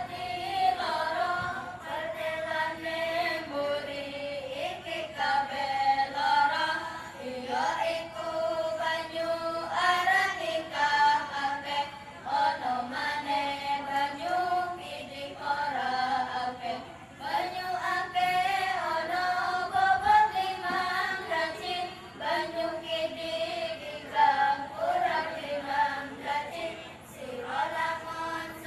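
A group of young children chanting in unison, a melodic recitation sung in phrases with brief pauses between them.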